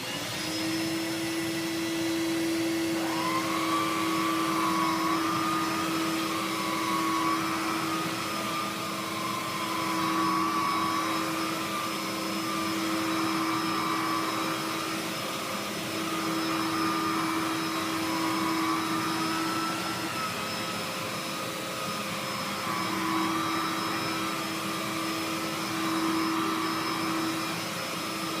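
Electrolux 3500 SR upright vacuum cleaner running, a steady motor hum with a higher whine that wavers up and down in pitch from about three seconds in.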